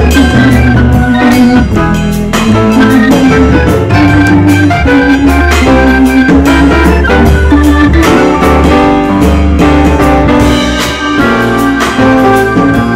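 Instrumental background music with a steady beat and a bass line.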